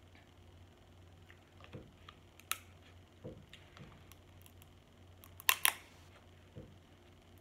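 Close-miked eating of snow crab meat: soft mouth and chewing sounds over a faint hum, with a sharp click about two and a half seconds in and a louder pair of sharp clicks about five and a half seconds in.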